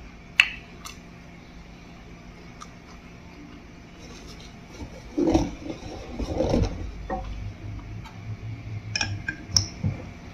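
A person chewing a bite of scallion pancake, mouth noises loudest midway, with a sharp click about half a second in and a few small clicks near the end. A faint steady hum runs underneath.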